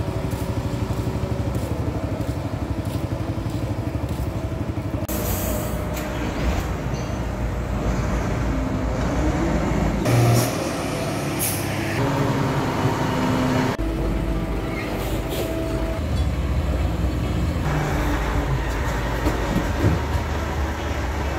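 Low, steady rumble of heavy diesel truck engines and cargo-handling machinery, with a few short hisses. The sound changes abruptly several times.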